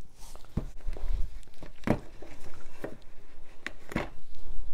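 Cardboard shipping box handled and opened with scissors: irregular knocks, taps and scrapes, with a few sharper clicks about two and four seconds in.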